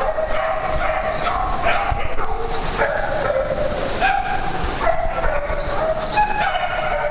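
Several dogs yipping and whining, their cries overlapping without a break.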